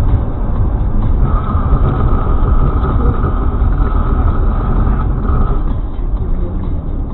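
A car driving on a snowy road, heard from inside the cabin: a loud, steady rumble of road and engine noise. A steady high tone sounds over it from about a second in until near six seconds.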